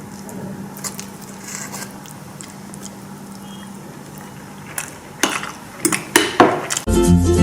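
Kitchen clatter of dishes and utensils over a steady low hum, with a run of sharp knocks near the end. Background music starts just before the end.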